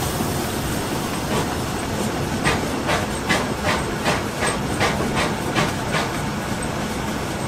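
Steam locomotive 98 886, a Bavarian GtL 4/4 tank engine, working ahead of the train: a run of regular exhaust chuffs about three a second, starting about a second in and fading near six seconds, over the steady rumble of the carriage running on the rails.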